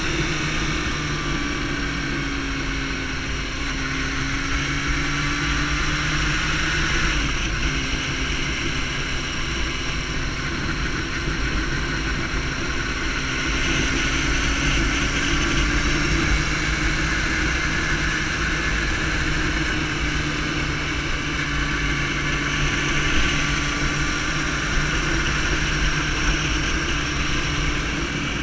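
Sport motorcycle engine running at a steady cruise, its pitch drifting gently up and down with small throttle changes through the curves, over steady wind noise.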